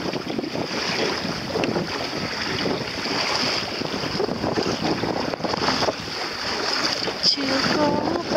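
Wind on the microphone over choppy water splashing against the hull of a small sailing dinghy under sail. A person's voice starts near the end.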